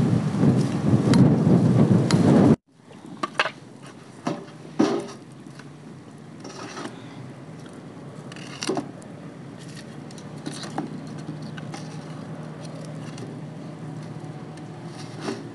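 Wind buffeting the microphone as a loud low rumble for the first couple of seconds, cut off suddenly. Then, much quieter, a handful of short wooden knocks and clacks as split firewood sticks are pushed into a metal barrel stove.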